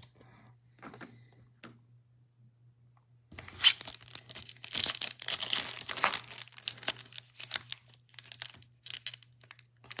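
A Topps Chrome trading-card pack's wrapper being torn open and crinkled by hand: faint rustles, then a loud burst of tearing and crackling about three seconds in that lasts around three seconds, followed by scattered crinkles.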